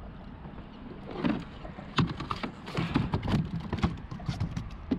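Irregular knocks, taps and rattles as a landing net and a large sheepshead are handled on a plastic kayak deck. The knocks come thickest from about two seconds in.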